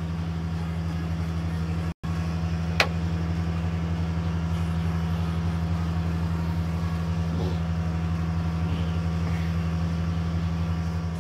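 A small fishing boat's engine running steadily at an even speed, a low drone with a fine rapid pulse, while the boat motors between fish cages. It cuts out for an instant about two seconds in, with a single tick just after.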